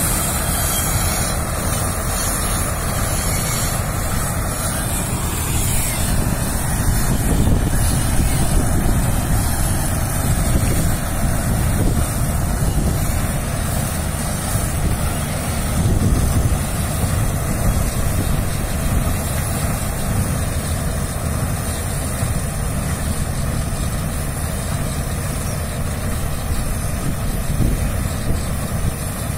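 John Deere 5310 tractor's diesel engine running steadily under load, powering a Dashmesh 912 tractor-mounted combine harvester as it cuts and threshes lodged rice.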